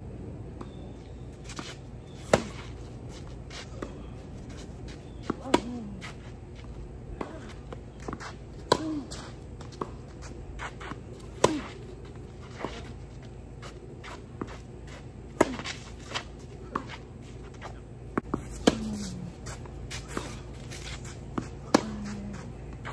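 Tennis racquets striking the ball in a baseline rally on a clay court. A sharp pop comes roughly every three seconds, with fainter hits and ball bounces in between, over a steady low background hum.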